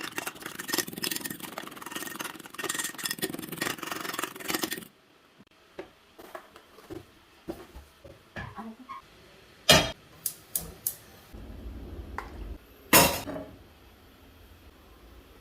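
A utensil beating eggs in a bowl, with rapid clinking for about five seconds. Then come scattered clinks and two sharp knocks about three seconds apart.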